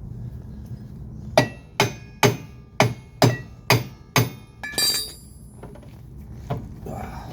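Seven sharp metal blows, about two a second, on a new golf cart wheel hub being driven into place, followed by a brief ringing metallic clatter.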